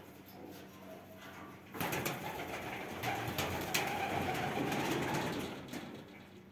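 Pigeon cooing, starting about two seconds in and fading out near the end, with a few light clicks.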